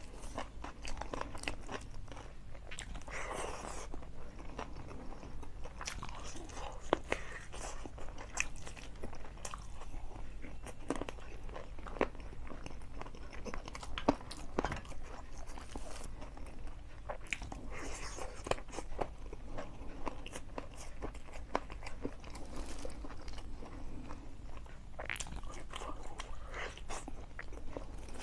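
Close-miked eating by hand: chewing and biting with crunches, mixed with the clicks and scrapes of fingers working rice and curry on a steel plate.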